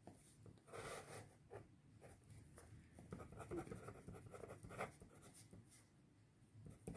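Pen writing on paper: faint, short scratching strokes as an arrow and letters are drawn.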